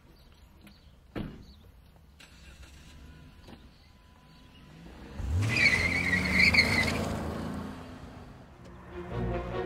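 Car pulling away hard: about five seconds in, the engine revs up and the tyres squeal for about a second and a half, then the sound fades as the car moves off. Music starts near the end.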